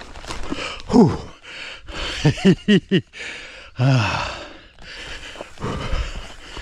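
Mountain bike riding down a rough dirt trail: tyre noise and knocks and rattles from the bike. Over it come the rider's short grunts and gasped breaths: one about a second in, a quick run of four a little past two seconds, and another near four seconds.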